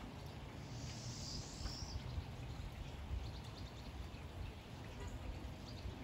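Steady rain falling, with a songbird giving one high call lasting about a second near the start and a few short faint chirps later on.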